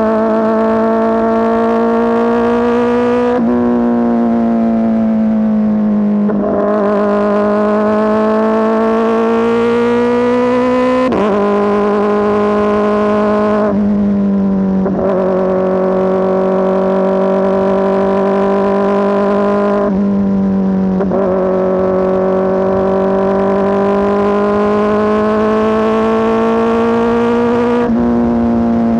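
Kawasaki ZX-4RR's inline-four engine through an SC Project S1 exhaust, running at steady high revs under way with a loud, continuous note. The pitch climbs slowly and drops back abruptly about seven times.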